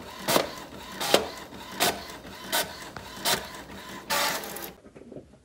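Desktop printer printing a page: a short mechanical stroke repeats about every three-quarters of a second as the print head passes. Just after four seconds in, a longer rush follows as the sheet feeds out.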